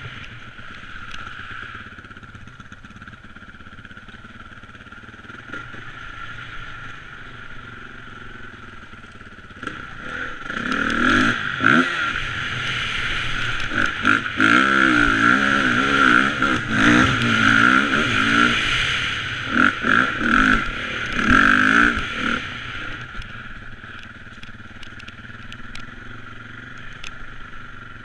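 2011 Honda CRF450R's single-cylinder four-stroke engine, heard from the rider's helmet while trail riding. It runs at low throttle at first, then from about ten seconds in revs hard, rising and falling repeatedly. It eases off again after about twenty-two seconds.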